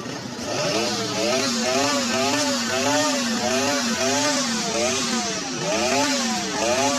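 Motorcycle engine revved over and over, its pitch rising and falling nearly twice a second in a steady rhythm.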